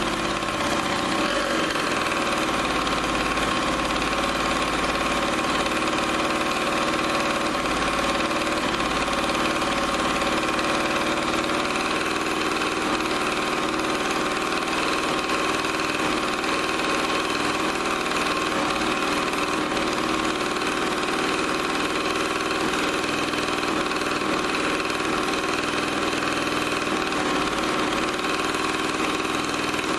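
Yamaha PW80's single-cylinder two-stroke engine running steadily at idle. The owner says the idle is still not right and the freshly fitted carburetor needs more tuning.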